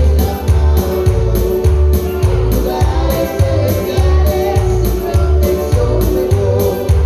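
Live gospel worship music with a steady bass-heavy beat, keyboard and singing.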